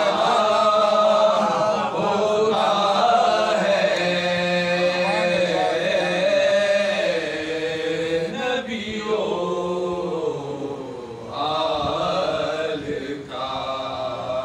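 A group of men chanting an Urdu salam in the soz-khwani style of mourning recitation, without instruments: a lead voice carries the verse while the other voices join him on long held notes.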